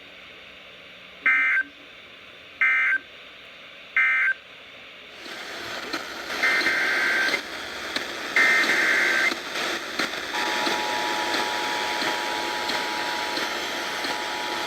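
Emergency Alert System data bursts: three short warbling digital bursts close the previous alert. Over a rising hiss come two longer bursts of the next alert's header, and about ten seconds in the steady two-tone EAS attention signal starts and holds.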